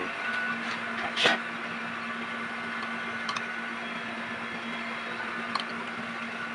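Friction discs and steel plates of a hydraulic drive motor's brake pack being handled: one loud clink about a second in and two faint clicks later, over a steady hum.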